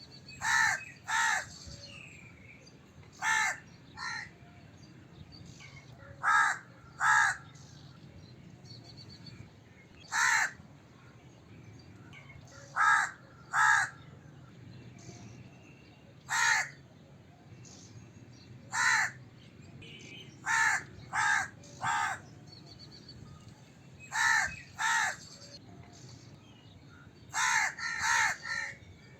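Crow cawing: short harsh caws, mostly in pairs or threes, repeated every two to three seconds, with a quick run of several caws near the end.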